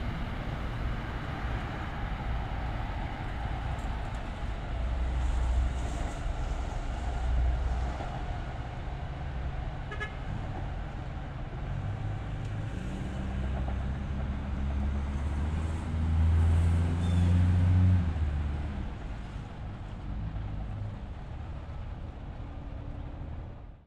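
A passing train, its rumble swelling and easing twice with a steady low engine or motor drone, stopping abruptly at the end.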